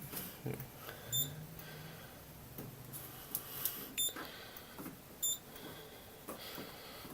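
Three short, high-pitched electronic beeps at uneven spacing, one to three seconds apart.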